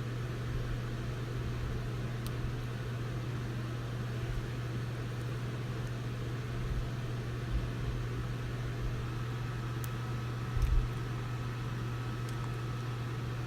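A steady low hum over an even background hiss, with a few faint clicks and a soft knock about ten and a half seconds in, as small antenna connectors inside a phone are unclipped.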